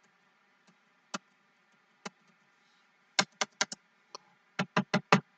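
Computer keyboard keys being tapped: a couple of single clicks, then two quick runs of four or five keystrokes about three and four and a half seconds in.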